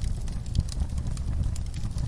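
Wood fire burning in a fireplace: scattered sharp crackles and pops over a steady low rumble of the flames.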